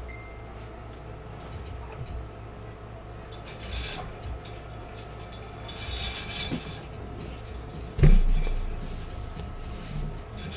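Items being handled on a tabletop: light clinks and rustling, then one heavy thump about eight seconds in, as of something set down hard.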